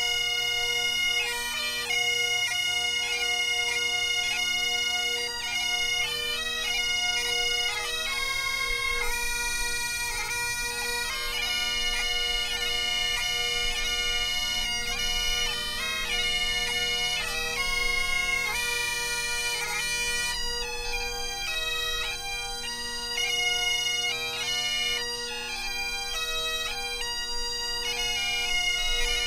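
Great Highland bagpipes playing a tune: a steady drone under a chanter melody that moves from note to note.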